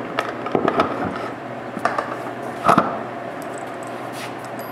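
A few wooden knocks and clunks as a plywood bandsaw wheel with a ball-bearing hub is fitted back onto its shaft, the loudest a little under three seconds in, over a steady hum.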